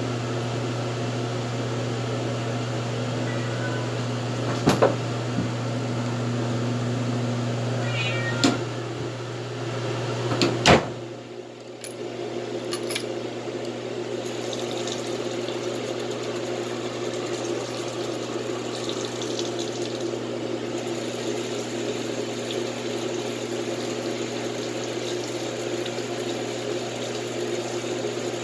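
A pet's short cries, with a few sharp knocks, over a steady low hum. The hum cuts off about a third of the way in and gives way to an even running-water sound, as for a bath.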